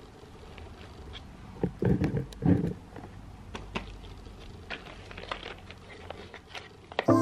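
Light clicks, taps and rustles of a child's hands rummaging in a plastic basket among a cardboard box of flash cards and markers, with a few louder knocks about two seconds in. Music starts at the very end.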